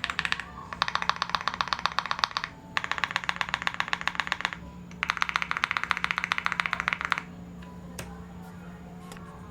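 Fast typing on a Tiger80 Lite mechanical keyboard with lubed Akko Cream Blue V3 tactile switches and PBT keycaps: four runs of rapid keystrokes with short pauses between, stopping about seven seconds in, then a few lone key clicks.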